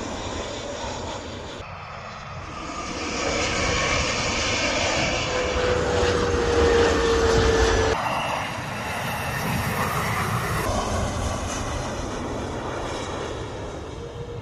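Jet airliner engines heard from beside the runway as the planes take off and land: a broad rushing noise with a steady whine that slides slowly down in pitch. It swells to its loudest about three to eight seconds in and changes abruptly at each cut between planes.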